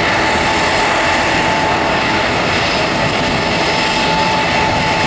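Boeing 737-300's CFM56-3 turbofan engines at takeoff thrust: a loud, steady rush of jet noise with a high whine held through it.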